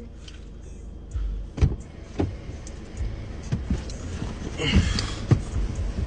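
A man getting into a parked car: the car door and his movement in the seat give a few sharp knocks and thumps, the loudest about one and a half seconds in, with a brief rustle of clothing near the end.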